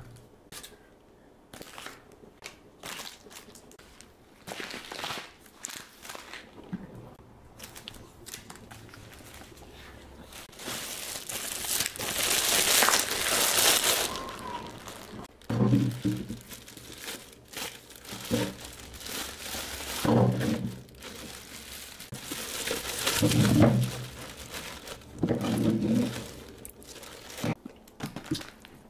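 Packaging crinkling and rustling as it is handled, with scattered clicks and knocks and a louder stretch of rustling about a third of the way in. Several short low-pitched sounds come in the second half.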